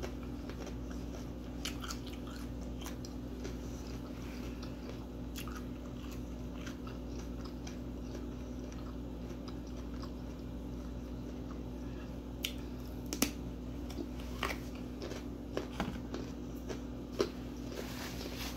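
A person chewing and biting into homemade pepperoni and vegetable pizza, with scattered short clicks and smacks that come sharper and louder in the last third, over a steady low hum.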